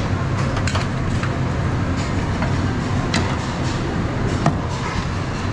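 A few sharp clicks and clinks of plastic serving tongs against steel buffet pans as ribs are picked up, over a steady low background hum.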